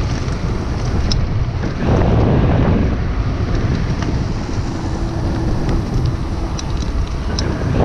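Wind buffeting the microphone over the low rumble of a mountain bike's tyres rolling on a gravel path, with scattered small clicks and rattles from the bike and loose stones.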